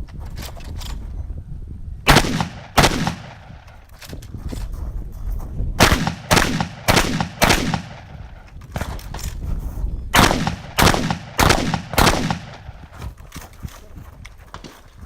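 Shotgun firing slugs at a run of targets: about ten loud shots in three quick groups, two, then four, then four or five, each ringing out briefly, with fainter clicks between the groups.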